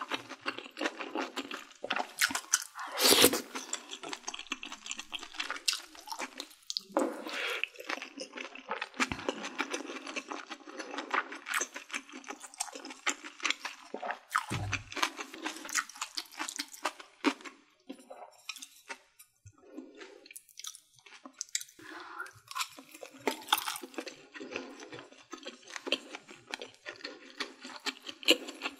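Close-miked eating sounds: steady chewing with wet mouth noises and many small clicks as sundae (Korean blood sausage) and pork are eaten, with a louder burst about three seconds in.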